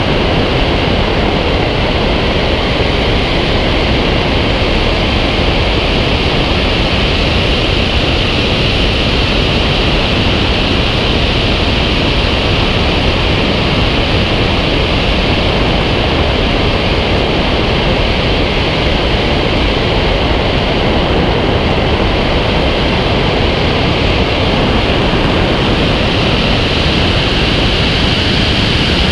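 Loud, steady rush of wind from the airflow over a camera mounted on the wingtip of a FOX aerobatic glider in flight.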